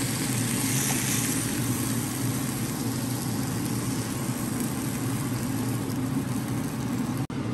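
Chicken breasts sizzling steadily on a hot electric contact grill while they are lifted off with tongs, over a constant low hum. The sound drops out for an instant near the end.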